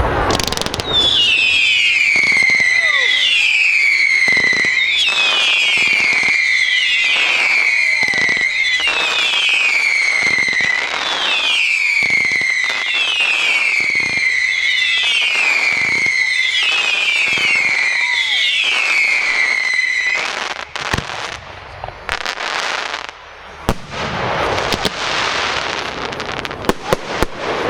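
Fireworks firing a regular run of whistling shots: a falling whistle about every two seconds, with bangs among them. About two-thirds of the way through the whistles stop, leaving scattered crackles and bangs.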